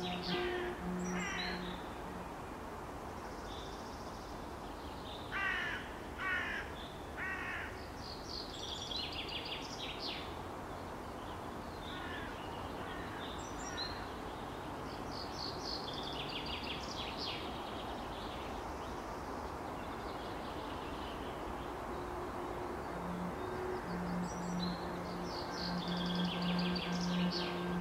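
Birds calling over a steady outdoor hiss, with three loud calls in quick succession about five to seven seconds in and scattered shorter calls throughout. A low bowed-string drone is heard briefly at the start and comes back near the end.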